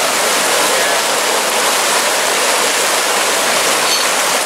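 Water gushing up from a burst underground water main and rushing across a flooded yard: a loud, steady rush of water.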